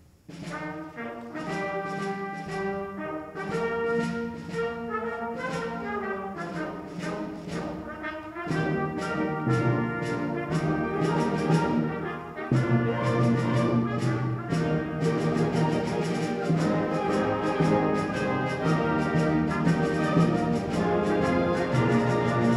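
Orchestral music led by brass, growing fuller with a deeper bass about a third of the way in.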